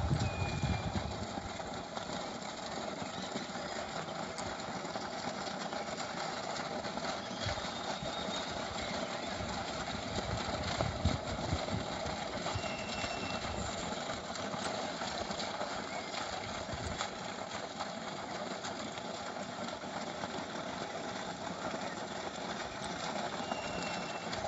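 Steady rush of water pouring from a solar-powered well pump's outlet pipe and splashing onto the ground, with occasional low thuds.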